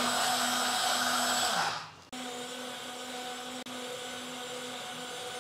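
Small battery-powered portable USB blender running with plain water in the jar: a steady motor hum with a whirring of the blades. The sound drops out for a moment about two seconds in, then the same steady hum carries on a little quieter.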